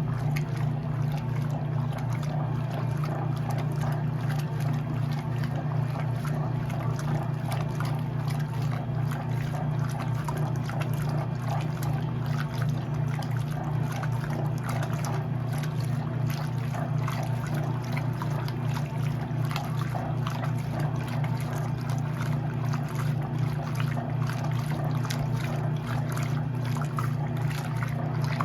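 Electrolux LE06DBD top-load washing machine running: a steady motor hum with water sloshing and trickling inside the tub.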